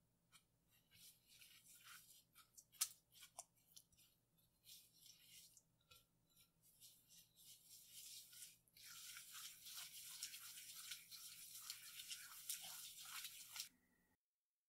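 Silicone spatula stirring brown sugar with melted butter and milk in a glass bowl: gritty scraping of sugar against the glass. The strokes come scattered at first, then run steadily from about nine seconds in until they stop near the end.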